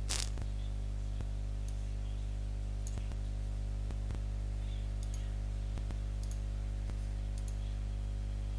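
Computer mouse clicking now and then, faint single clicks spread unevenly, over a steady low electrical hum.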